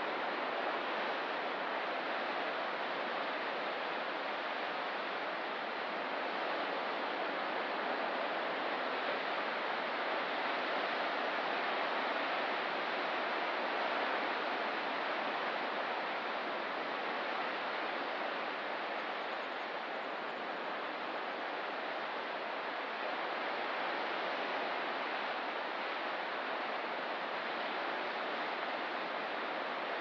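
Ocean surf: a steady, even wash of noise with no single breaking wave standing out.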